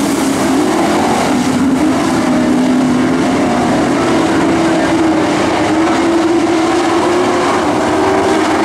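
Engines of a pack of Pro Truck dirt-track race trucks running together at racing speed, a loud steady drone whose pitch wavers slightly as the trucks go through the turn and down the straight.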